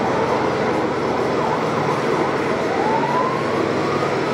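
A siren wailing, its pitch sliding upward about two and a half seconds in, over a steady background din with a low hum.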